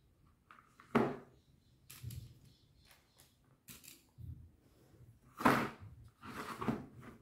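Plastic ice-pop moulds being handled and set down on a placemat over a table: a sharp knock about a second in, a few lighter taps and scrapes, then a louder clatter and shuffling of the moulds near the end.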